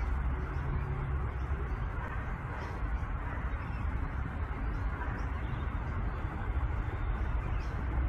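Steady low rumble of distant road traffic, with faint, short, high bird chirps now and then.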